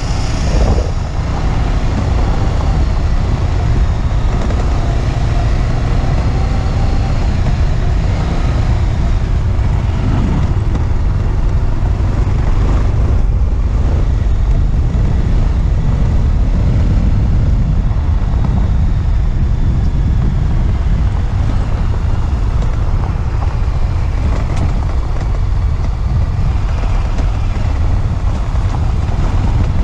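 Motorcycle running at speed, its engine mixed with a steady, heavy wind rumble on the microphone.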